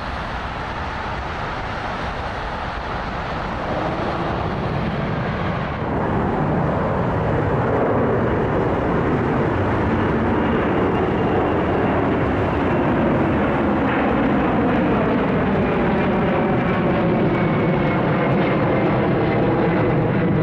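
Jet airliner noise. For about the first six seconds there is a steadier, quieter jet sound from an airliner on the runway. Then it switches abruptly to a louder, wavering jet sound from a McDonnell Douglas MD-11 freighter's three turbofan engines at climb power as it passes low overhead after takeoff.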